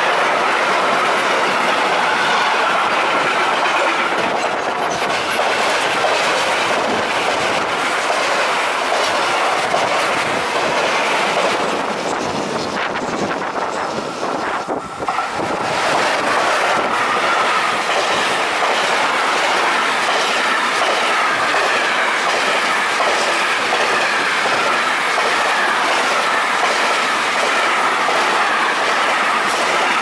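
Freight trains passing at close range one after another, first a rake of covered goods wagons and then an electric locomotive hauling container wagons. There is a steady rush and rumble of wheels on rail, a clickety-clack over the rail joints and a thin steady squeal. A short lull about halfway through falls between the two trains.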